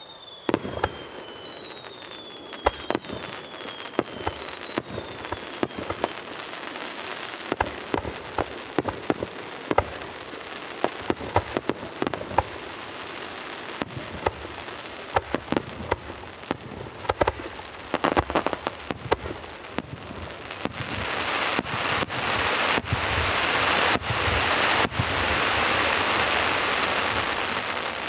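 Fireworks starmine barrage: a long run of sharp shell-burst bangs, with a few falling whistles in the first seconds. From about twenty seconds in, the bangs give way to a loud, dense crackling hiss of crackling stars.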